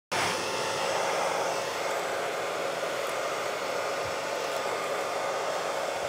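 Delta Lux handheld hair dryer running, blowing a steady rush of air through a woman's long hair.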